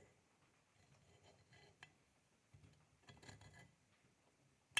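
Near silence with faint small metal handling sounds and a short sharp click near the end: a steel shaft key being fitted into the keyway of a go-kart torque converter.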